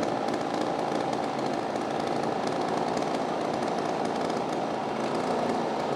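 Pallet mill machinery running steadily: an even mechanical noise with a constant hum.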